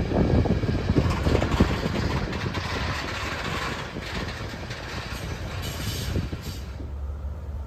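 A train running by: a low rumble with knocks and clatter in the first two seconds, then a steady hiss that dies away near the end.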